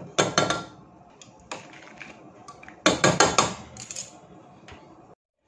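Metal kitchen tongs clinking and scraping against a stainless steel pot while stirring noodles in boiling water: two quick clusters of rattling clinks, one just after the start and another about three seconds in.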